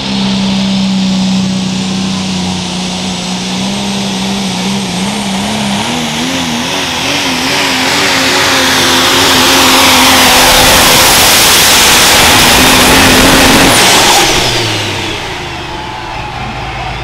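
Dodge Ram super stock diesel pulling truck at full throttle pulling a sled, its engine note wavering up and down a few seconds in while a high turbo whistle climbs and holds. About fourteen seconds in, the throttle is released at the end of the pull: the whistle falls away and the engine drops to a lower note.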